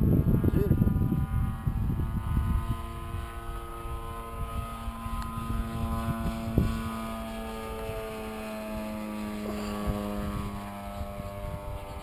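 Engine and propeller of a radio-controlled model tow plane flying overhead, a steady drone whose pitch slowly falls. Wind buffets the microphone during the first couple of seconds.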